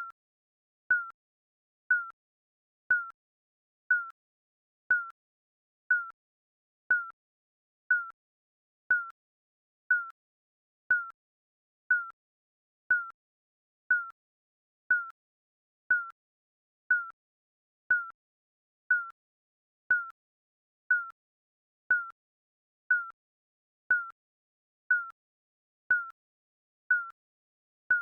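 Digital countdown timer beeping once every second: a short, mid-pitched electronic beep with a slight downward dip, ticking off the seconds.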